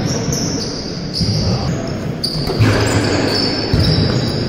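Basketball game in a large sports hall: the ball bouncing on the court floor amid players' footsteps, with short, high-pitched sneaker squeaks now and then.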